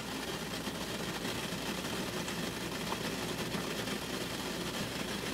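Steady low rumble and hiss from the stovetop steamer, with water heating in the pot beneath the tray.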